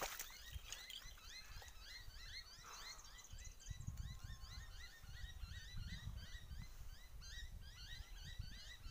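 Many small birds chirping together in a dense, continuous chorus of short repeated calls, over a low, uneven rumble.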